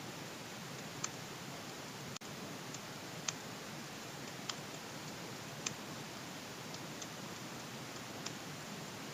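Computer keyboard keys clicking now and then as text is typed: single sharp clicks at uneven intervals over a steady hiss.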